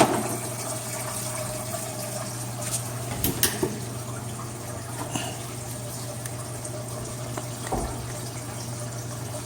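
Aquarium filter running: a steady rush of trickling water with a low hum underneath, broken by a sharp click at the start and a few light taps a few seconds in.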